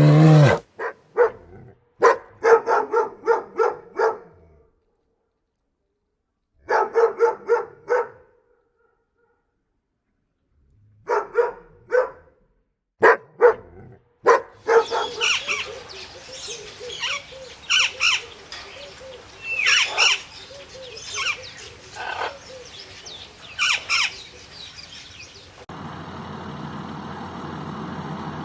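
Short runs of repeated animal calls, several in quick succession with silent pauses between them. These are followed by many birds chirping together, and about 26 seconds in they give way to a steady rushing noise with a thin high tone.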